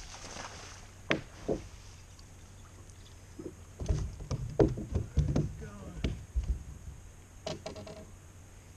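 Knocks and heavy thumps on a fiberglass bass boat's deck as a bass is hooked and landed over the bow, the thumps coming in a dense cluster midway, with a short run of rapid clicks near the end. A steady low hum runs underneath.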